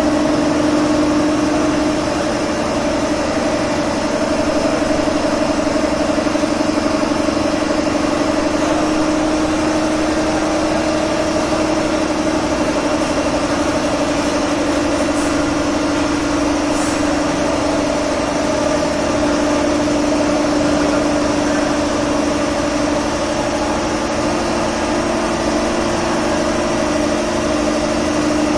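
Steady machine hum: a constant low whine with an overtone an octave above, over an even hiss, not rising or falling.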